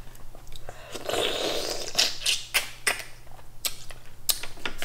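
Close-up eating of mussels: wet chewing and mouth sounds, then a run of sharp clicks and scrapes as a fork works against the mussel shells.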